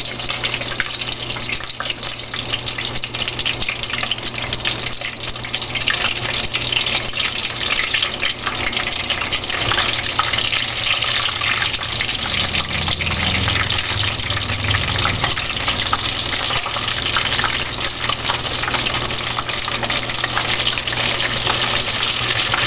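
Batter-dipped shrimp deep frying in hot oil in a fryer basket: a steady, dense crackling sizzle as the batter browns.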